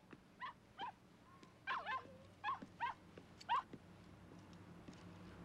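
Small dog giving a series of short, high whining yips, about seven in three seconds, each sliding in pitch.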